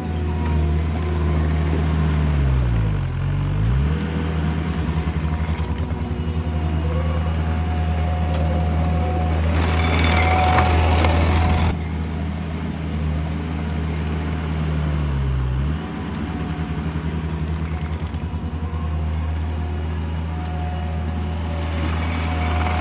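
Takeuchi TL130 compact track loader's diesel engine running steadily as it works dirt. The engine note dips and comes back up briefly twice, about three seconds in and about fifteen seconds in, and a harsher rush of noise rises over it from about ten to twelve seconds in.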